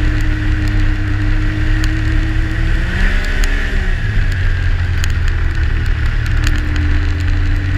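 Yamaha Sidewinder snowmobile's turbocharged three-cylinder four-stroke engine running at trail speed, its pitch easing down about three to four seconds in and climbing again near the end as the throttle changes. Track and snow noise run underneath, with a few light ticks.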